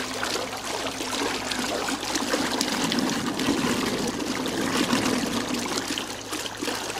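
Two old 12-volt electric trolling motors, a Phantom Bantam and an ElectroPal, running submerged in a barrel of water, their propellers churning and splashing the water steadily. One has just been switched to its high setting.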